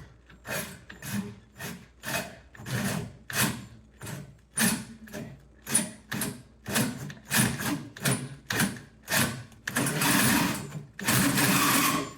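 Ryobi cordless drill driving a 2 1/8-inch hole saw, run in short trigger bursts about two a second to start the cut, then in two longer stretches of about a second each near the end.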